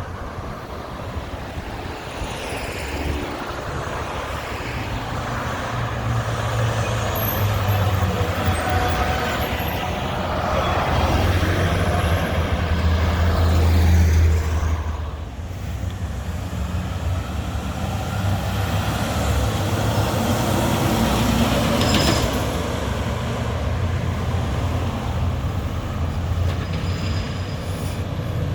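Front-loader garbage truck's diesel engine running and revving. The revs build to a peak and then fall away suddenly, and there is one short sharp burst about three quarters of the way through.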